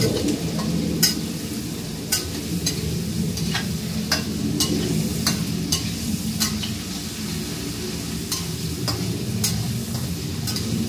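Metal spatula stirring shrimp frying in oil in a wok, scraping and knocking against the pan about once a second over a steady sizzle.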